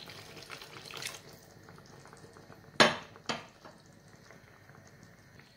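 Water pouring from a glass into a pan of tomato sauce for about a second. Then two sharp clinks of kitchenware about half a second apart near the middle.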